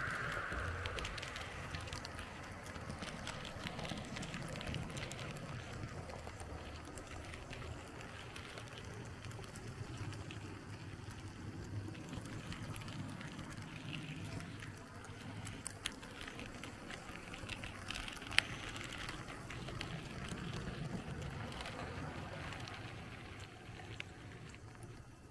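Märklin H0 model train running along the track: a steady low motor hum and wheel rumble with light clicking, and two sharper clicks about 16 and 18 seconds in.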